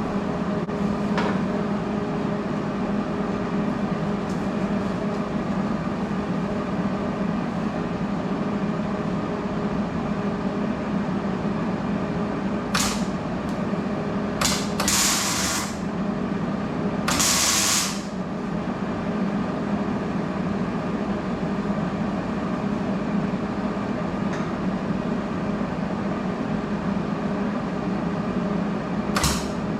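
A welder humming steadily, with short bursts of arc welding crackle: a cluster of four around the middle and one more near the end, as the turbo wastegate is welded shut.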